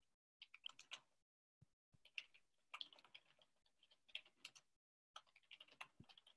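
Faint typing on a computer keyboard: quick irregular clicks in several short bursts, heard over a video call, with the call audio dropping to dead silence between bursts.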